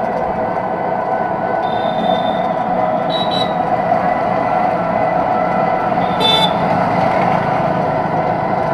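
Riding inside a moving electric auto-rickshaw: a steady electric-motor whine over road noise, with a few brief high-pitched chirps about two, three and six seconds in.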